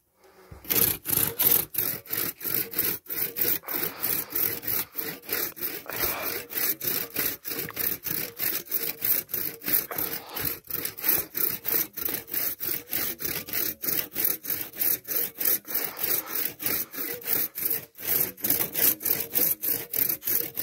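Hand saw cutting into a birch trunk: steady back-and-forth rasping strokes, about three a second, starting about half a second in and stopping at the end.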